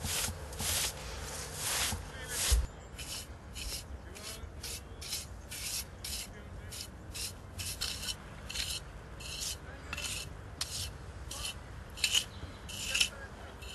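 Hand tool rubbing and scraping across fresh clay plaster in quick, even strokes, about two or three a second, as the plaster around a reed-mat inlay is worked and cleaned.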